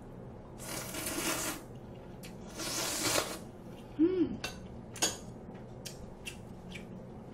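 A person slurping cold ramen noodles in two long slurps, then chewing with small wet clicks and a short hummed "mm" about four seconds in.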